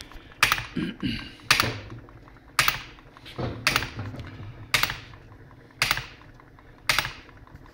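Solenoid-powered model hit-and-miss engine running, its solenoid snapping shut with a sharp clack about once a second, seven times, with a faint mechanical rattle of the piston and flywheel between strikes. Each clack is the solenoid firing when a revolution has taken longer than the controller's set threshold.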